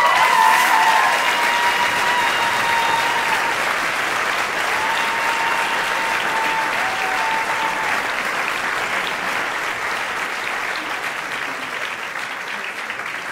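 Theatre audience applauding, the clapping slowly dying down.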